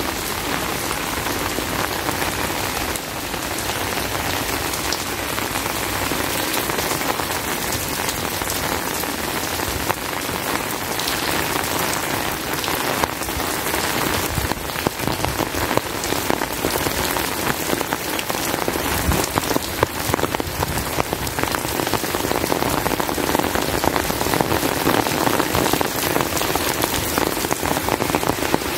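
Heavy rain falling steadily, a dense hiss of countless drops, growing a little louder in the second half.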